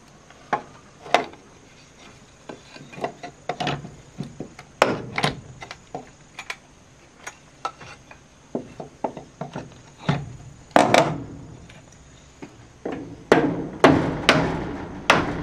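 Irregular knocks and clatters of wood on wood, as timber is worked and handled, with heavier blows about eleven seconds in and again near the end.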